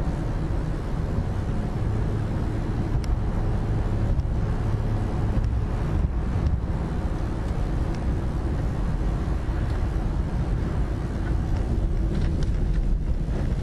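Steady low drone of a car driving along a highway, from engine and tyre noise, with a few faint ticks.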